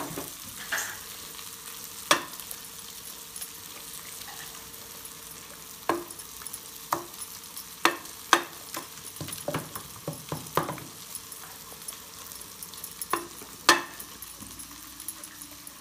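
Wooden dal masher (mathu) churning cooked green gram in an aluminium pressure cooker: wet stirring and mashing, with irregular sharp knocks of the wood against the pot, most of them in the middle, over a steady hiss.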